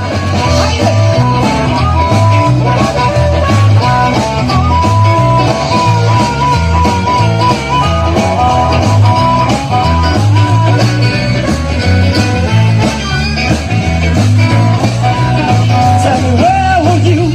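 Live rock band playing: electric guitars over drums and bass with a steady beat, a harmonica holding long notes through the first half, and a male singer.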